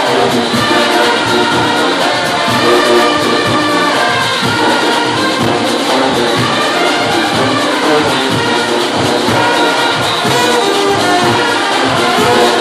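Brass band playing loudly, horns sounding over a steady drum beat.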